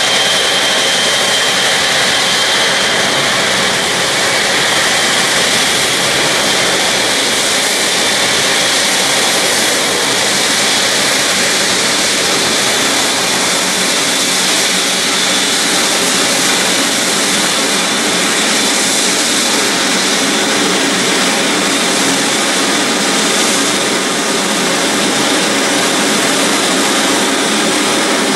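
Boeing 777-300ER's twin GE90 turbofans at taxi power as the jet rolls past: a steady, loud jet whine over a rushing hiss, with a high whistle that fades out in the first couple of seconds.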